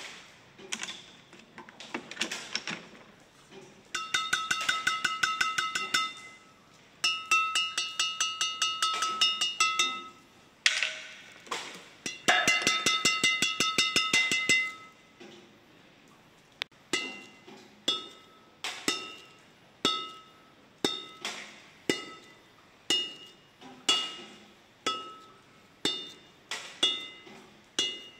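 The freshly strung string bed of a Kason 100TI badminton racket (Gosen Ryzonic 65) is tapped, and each tap gives a ringing ping at the same pitch. Around the middle come three quick runs of rapid taps. Near the end come single taps about once a second.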